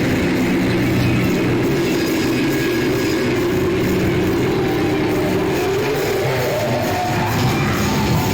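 Extreme black/death metal with industrial grind noise: a dense, loud wall of distorted guitars and bass over drums, unbroken throughout.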